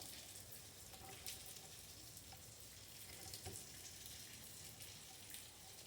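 Near silence: faint hiss with a few soft clicks from a screwdriver turning a small T10 Torx screw in a drill housing.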